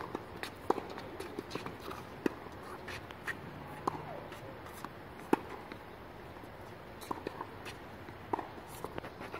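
Tennis balls being struck with rackets and bouncing on a hard court during a rally: sharp, irregular pops every second or so, a few of them much louder than the rest.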